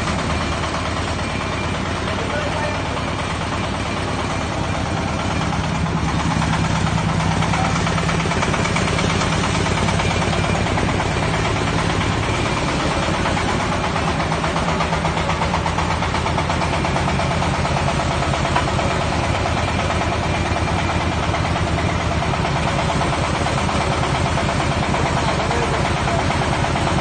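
Engine of a hydraulic well-drilling rig running steadily, picking up a little about five seconds in.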